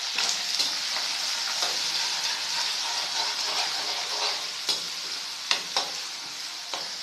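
Chopped onion and green chillies sizzling in hot oil in a pan as they are sautéed and stirred, with a few sharp clicks in the second half.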